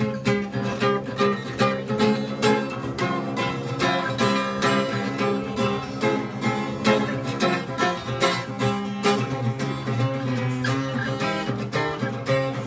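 Acoustic string music: a guitar picked and strummed in a quick run of plucked notes.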